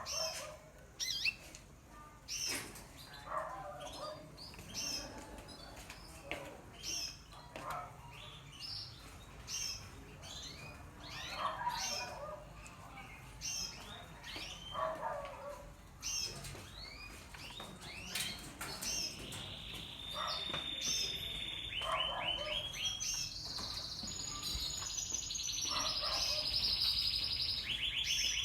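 Caged canaries chirping with many short calls. In the latter part, a canary sings long, fast trills.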